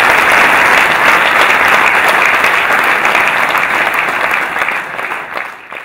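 Audience applauding, a dense steady clapping that thins and dies away near the end.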